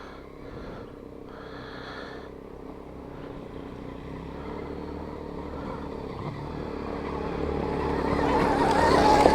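Dirt bike engine running at low, steady revs, getting steadily louder over the last few seconds.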